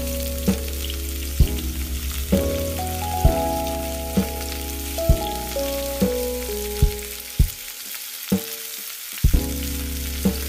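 Kimchi fried rice sizzling in hot oil in a frying pan, a steady hiss, with instrumental music playing over it.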